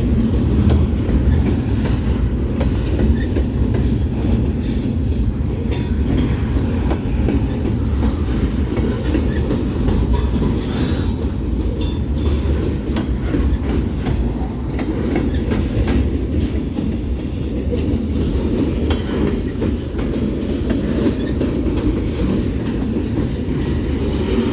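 Union Pacific mixed freight train's cars rolling past close by: a steady heavy rumble with the clickety-clack of wheels over the rail joints and a few brief high squeaks from the wheels.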